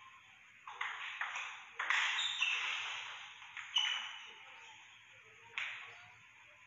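A table tennis ball knocking sharply off bats and table, each knock ringing on in the hall. There are several knocks at irregular spacing, closer together in the first two seconds.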